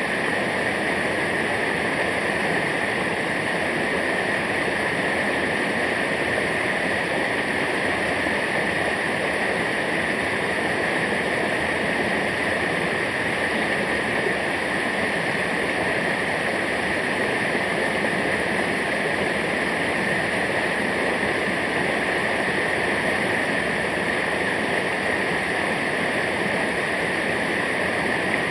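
Steady rushing water of a waterfall, an even roar that does not change.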